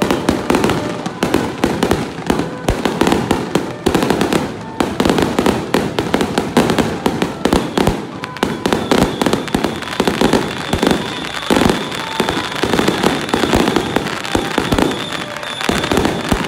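Strings of firecrackers going off in a rapid, continuous crackle of sharp pops.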